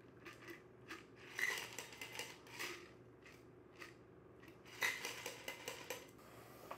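Ice clinking and rattling against a metal cocktail shaker tin as the drink is double-strained through a fine-mesh strainer: light metallic clinks in two bouts, the first about a second and a half in and the second about five seconds in.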